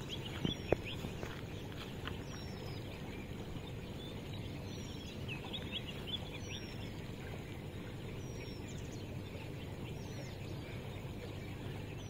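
Birds calling: a short, high, falling chirp repeated about once a second, with other scattered chirps, over a steady low rumble of open-air background noise. Two sharp clicks about half a second in.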